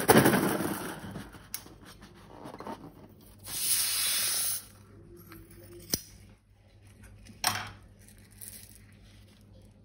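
Rubbing and rustling from handling balloons and slime. There is a steady hiss lasting about a second near the middle, and two sharp clicks later on.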